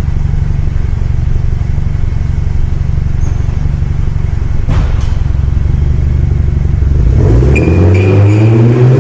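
BMW 120i's 2.0-litre engine idling through a custom back-box-delete quad exhaust, a steady low rumble. A single knock comes about five seconds in, and near the end the engine note rises as the revs climb.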